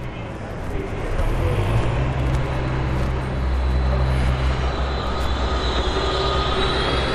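A city bus's engine running close by in street traffic: a loud, steady low rumble, with a faint thin whine above it in the second half.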